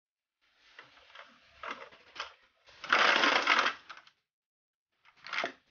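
Clear plastic packaging crinkling and rustling as it is handled, loudest for about a second starting around three seconds in, with another short crinkle near the end.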